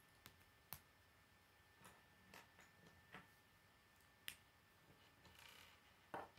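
Faint clicks and handling of plastic K'nex pieces as rods are pushed into connectors: a scattering of small separate clicks, the loudest near the end.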